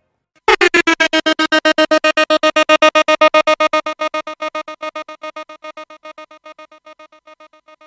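A synthesized keyboard tone stuttering in rapid pulses, about ten a second, as a fast-forward transition effect. It starts abruptly about half a second in and slowly fades away.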